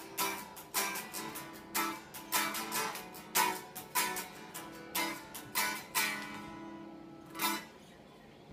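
Unplugged Rickenbacker 381v69 semi-hollow electric guitar with roundwound strings, strummed and heard acoustically: a run of chord strokes about two a second that stops about six seconds in, then one last strum near the end that rings out.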